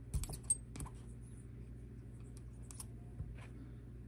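Light clicks and taps as the small adapter plugs of an RC helicopter swash-leveling tool are handled and tried on a metal shaft, with small knocks from a plastic parts box. The clicks come thickest in the first second and are sparse after, over a low steady hum.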